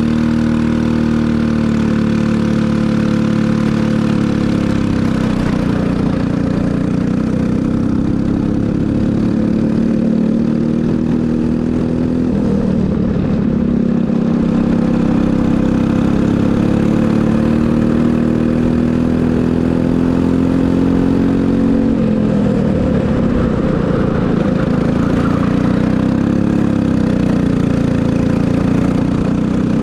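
Briggs & Stratton LO206 single-cylinder four-stroke kart engine running hard under load, its pitch climbing and falling with throttle and dropping back twice as the kart slows for turns.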